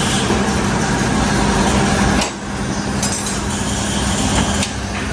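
Steady workshop machinery noise with a low hum that drops away about two seconds in, and a few sharp metallic knocks near the end.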